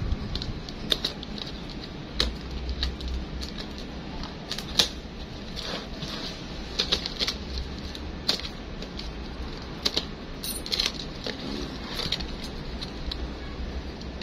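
Irregular clicks and snaps of plastic cable ties being cut with a small cutter and pulled off a plastic crate, over a low steady rumble.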